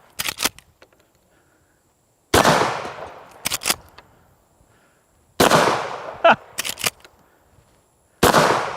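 Shotgun fired three times, about three seconds apart, each shot dying away quickly and followed within about a second by a few quick sharp clacks.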